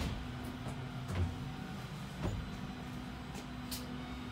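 Narrow-gauge electric train standing with its equipment running: a steady electrical hum. A couple of soft knocks come about one and two seconds in, and two sharp clicks come near the end.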